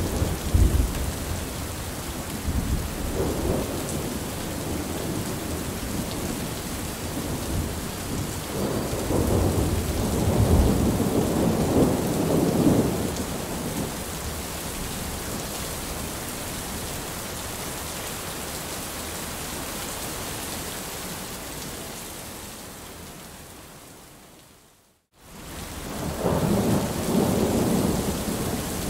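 Heavy rain falling steadily with rolling thunder, the low rumbles swelling and dying away several times. About 22 seconds in the sound fades out to a moment of silence, then comes back abruptly with another rumble of thunder.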